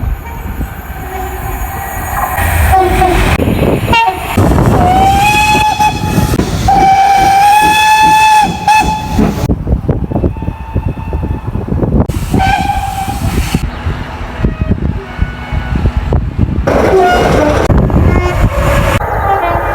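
Train horns sounding several times over loud train engine and wheel noise. The longest blast is held for about two seconds, and the sound breaks off abruptly a few times.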